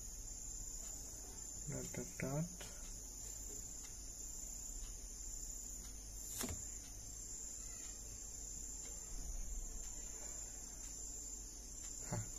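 Quiet room tone with a steady high-pitched whine or trill behind it. A short hum from a man's voice comes about two seconds in, and a single faint click about midway.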